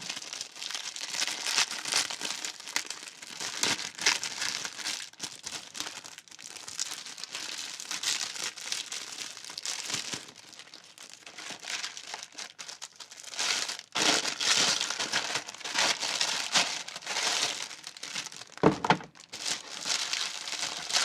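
Packaging crinkling and rustling in irregular bursts as a tablet case is unpacked, with a brief knock near the end.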